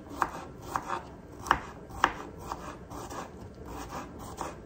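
Kitchen knife cutting a cucumber into small pieces on a cutting board: irregular sharp taps of the blade meeting the board, about two a second.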